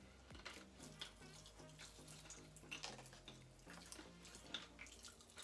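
Faint, irregular crackling and popping of Pop Rocks popping candy fizzing in mouths, over quiet background music with a low melody.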